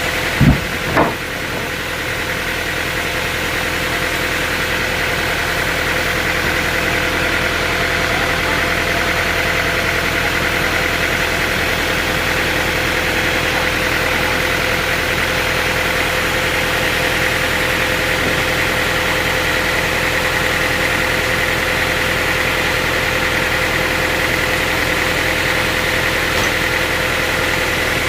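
Sawmill machinery running steadily under engine power, a constant hum with a steady whine over it, and two sharp knocks about half a second and one second in.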